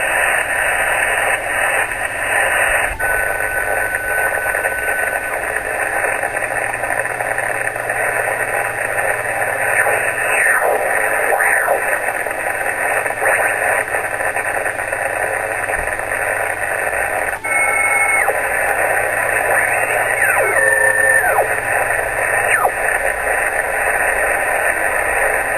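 A Yaesu HF transceiver's speaker gives a loud, steady hiss of interference in sideband mode, with a few short whistles and sliding tones as it is tuned across the 40, 30 and 20 m bands. The noise holds the S-meter around S9 and makes HF operation impossible.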